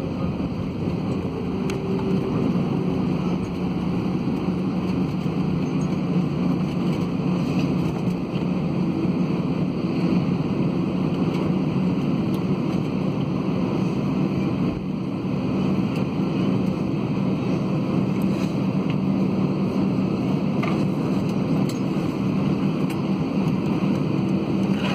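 Steady cabin noise inside an Airbus A320 as it slows on the runway after landing and turns off onto a taxiway, with a steady low hum throughout.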